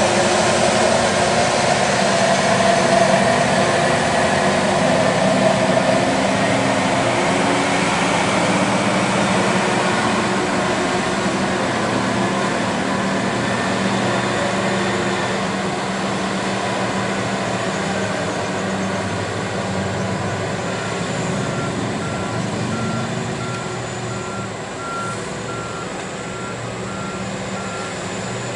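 Liebherr R 996 mining excavator running steadily under load as it digs and swings, slowly growing quieter over the stretch. Through the last several seconds a backup alarm beeps at a steady rhythm.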